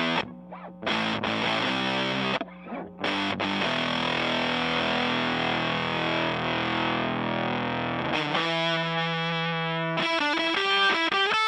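Electric guitar, an American Stratocaster, played through the homemade Power2 fuzz pedal into a Fender Blues Junior amp. First come a few short chord stabs with brief stops, then one chord is held for several seconds, and toward the end it turns to single-note lead lines that quicken.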